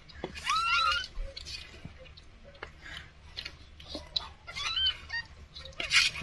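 Newborn kittens mewing: short, high, squeaky cries that rise and then fall, two together about half a second in and two more around four and a half seconds, with soft rustling and small clicks in between.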